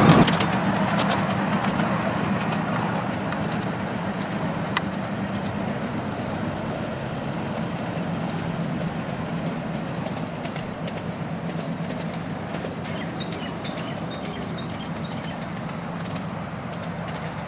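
Small-gauge ride-on train pulled by a miniature locomotive, running along the track away from the listener: a steady low hum that slowly fades as it pulls away. A single sharp click about five seconds in.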